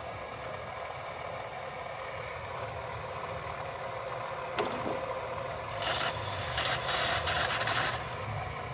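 Model RC Cat 336D excavator's drive motors whirring steadily as it lifts and swings a bucketful of soil. From about halfway through come louder, rasping bursts, thickest near the end.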